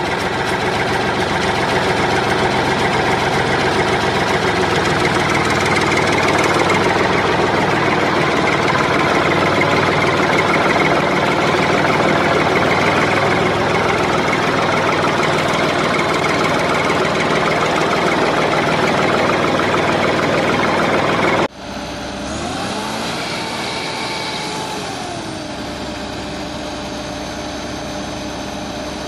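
Toy vehicle motors running: a loud, steady mechanical drone that cuts off abruptly about three-quarters of the way through. It is followed by a quieter motor whine that rises in pitch, holds, and falls back.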